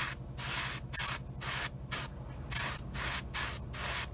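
Airbrush spraying paint in short bursts, about two or three a second, each a brief hiss that cuts off cleanly, as a light coat is layered onto a small plastic model part. A low steady hum runs underneath.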